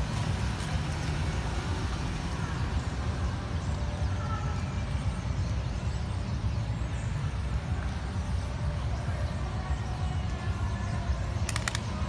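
City park ambience: a steady low rumble under faint voices of passers-by, with a few sharp clicks near the end.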